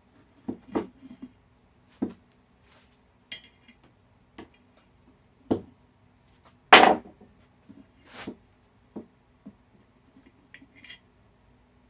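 Scattered knocks and metallic clinks of a wheelbarrow wheel and tire being handled and worked onto the rim by hand, with one louder clatter about seven seconds in.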